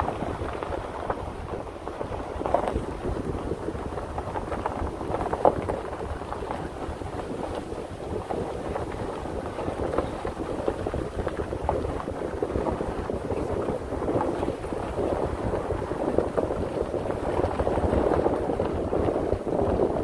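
Ford F-150 pickup driving slowly on a dirt forest road: a steady rumble and hiss of the tyres on the gravel surface and the engine, with wind on the microphone and a few short clicks, growing a little louder near the end.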